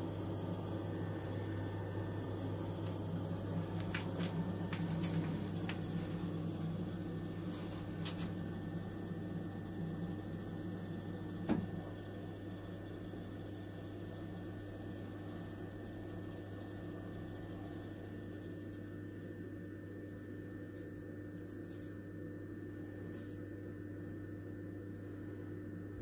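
Vaillant gas condensing wall boiler running, its combustion fan and burner giving a steady hum. A single click comes about eleven seconds in, after which it runs slightly quieter.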